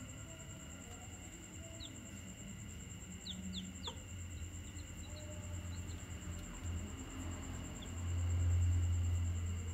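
Newly hatched bantam chicks giving a few short, high, falling peeps, clustered about two to four seconds in. A steady low hum swells louder near the end.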